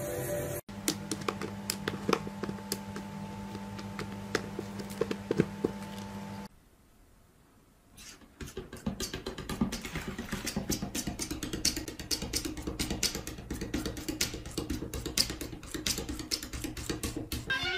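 A cat pawing at a glass shower door: quick, irregular taps, several a second, over a low steady hum. Before that comes a stretch of steady hum with scattered clicks, then a moment of near silence.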